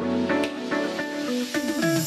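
Background music: a melody of held notes over light percussion. Near the end, a few falling pitch sweeps lead into a heavier bass beat.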